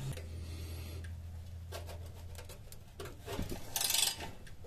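A ratchet and wrench straining on seized, rusted exhaust flange bolts: faint scattered clicks, then a louder rasping creak about three and a half seconds in as a rusted bolt is forced.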